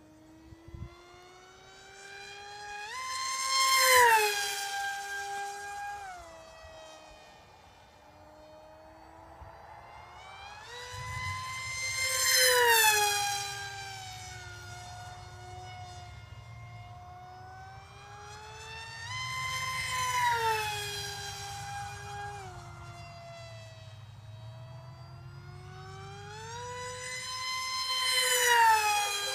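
Pink RC pusher-prop delta jet with a 2212 2450kv brushless outrunner spinning a 5.5x4.5 prop on a 4S lipo, making four high-speed passes about eight seconds apart. Each time, the high-pitched motor-and-prop whine swells and rises as the plane comes in, then drops sharply in pitch as it goes past.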